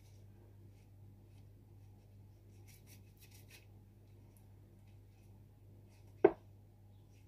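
A single sharp knock about six seconds in as a freshly cut bar of soap is set down on a wooden board, after a few faint rustling handling sounds, over a steady low electrical hum.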